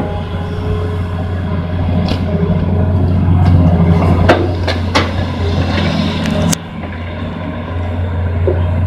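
Hitachi Zaxis 210 excavator's diesel engine running steadily under load as it digs and lifts wet mud, with a few sharp knocks from the machine. The engine sound drops suddenly about six and a half seconds in.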